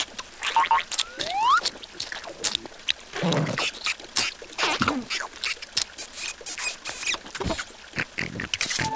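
Squeaky, wordless cartoon vocal sounds from the animated larva characters, with a rising squeal about a second and a half in, among scattered short clicks and taps.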